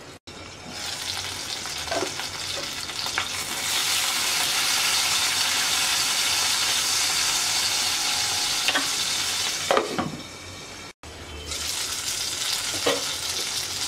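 Hilsa fish tail sizzling as it fries in mustard oil in a karahi, turned with a wooden spatula that taps the pan a few times. The sizzle grows louder about four seconds in and cuts out for an instant twice.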